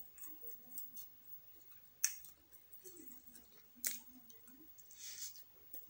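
Close-up eating sounds: a fork clicking sharply on a plate twice while fried noodles are twirled and lifted, soft mouth and chewing sounds, and a short slurp-like hiss near the end as the noodles go in.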